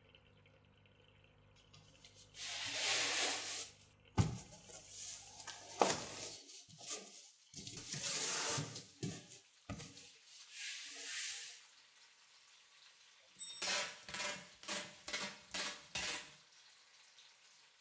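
Cardboard box being packed and sealed: several rasping pulls about a second long, with sharp knocks between them, then a quick run of short rasps and taps near the end.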